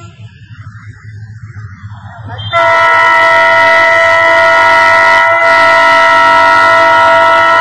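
Diesel locomotive horn blasting loud and continuous, several tones sounding together, cutting in suddenly about two and a half seconds in after a low rumble from the approaching train; the horn breaks briefly once about five seconds in.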